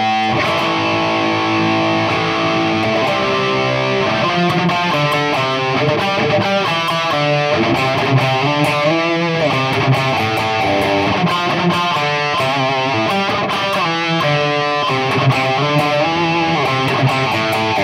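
Stratocaster-style electric guitar played through a Valeton GP-200 multi-effects processor on an overdrive patch, playing rhythm chords with a distorted tone.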